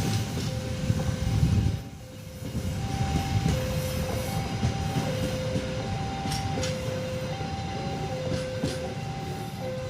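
Level-crossing warning alarm ringing a steady two-tone pattern, a higher and a lower note alternating about every half second, over the rumble of a diesel train on the rails. The rumble briefly drops away about two seconds in.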